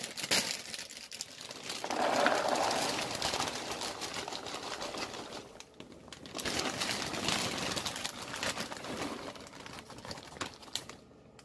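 Pre-popped popcorn poured from plastic bags into a plastic container: a dense rattling rustle of kernels tumbling in, with the bags crinkling. There is a short break about halfway, and the pouring tails off near the end.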